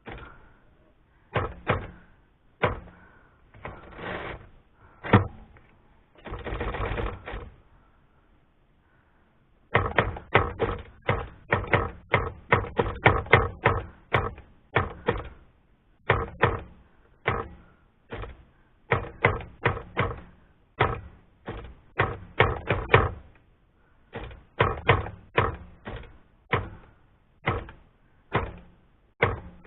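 Remington Noiseless No. 6 typewriter being typed on to test it after an escapement adjustment meant to stop the carriage skipping: a few separate keystrokes, a second-long sliding sound about seven seconds in, then from about ten seconds on a fast run of keystrokes, several a second, in bursts.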